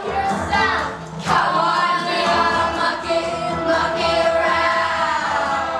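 A children's chorus singing a musical-theatre song together, holding some notes for a second or more.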